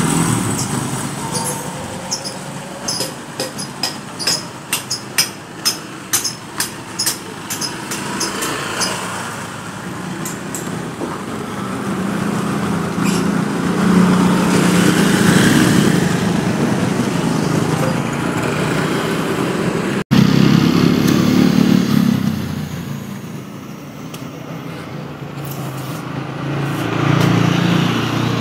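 Small motorcycles passing along a street, their engines swelling and fading several times. A run of sharp clicks and taps comes in the first several seconds, and the sound breaks off for an instant about two-thirds through.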